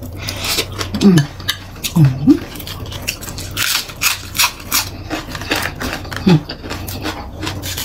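Close-up eating sounds: chewing a mouthful and crunching bites of raw vegetable, with wet mouth clicks and smacks. There are three short hummed "mm" sounds, about one, two and six seconds in.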